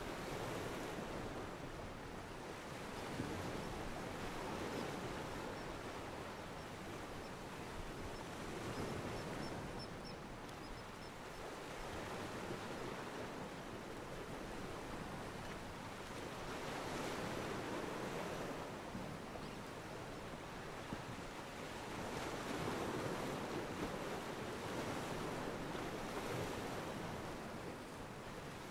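Ocean water washing against a pier, a steady wash of surf that swells and eases every few seconds, from a library water-and-ocean-pier ambience track.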